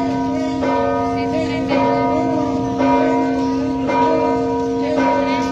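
Large church bell tolling, struck five times about a second apart, its tone ringing on between strokes.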